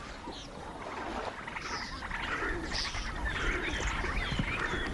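Wild animal calls: many short high chirps, several falling in pitch, over a low rumble that grows louder from about halfway through.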